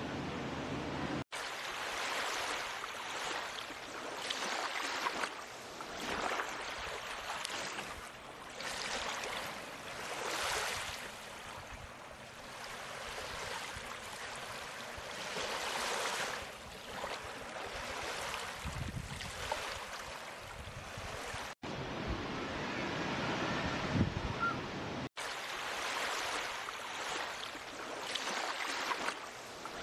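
Sea waves washing in, a steady rushing hiss that swells and fades every few seconds. It breaks off abruptly for an instant three times.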